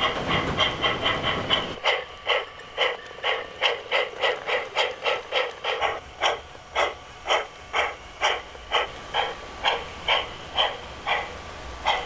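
Electric garden-scale model steam locomotive's chuffing sound effect, a steady run of steam chuffs at about three a second that slows to about two a second in the second half. A low rumble lies under the first two seconds and stops abruptly.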